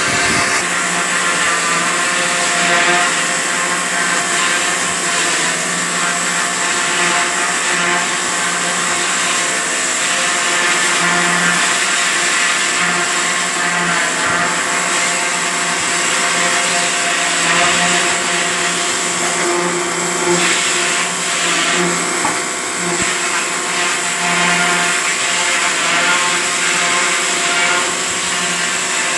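A small electric motor running steadily with a whine, holding the same level throughout.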